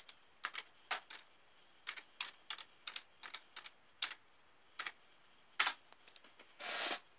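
Password being typed on a computer keyboard: about fifteen to twenty short, irregular key clicks, followed near the end by a longer noise lasting about half a second.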